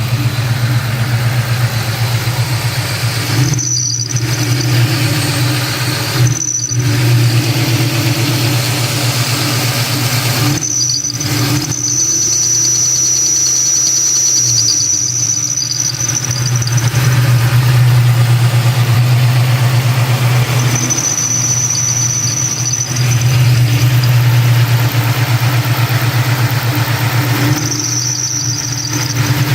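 2003 Mustang SVT Cobra's supercharged V8 running steadily, with a high, thin squeal from the accessory belt drive that comes and goes several times, the longest lasting about four seconds: the sign of a bad belt tensioner.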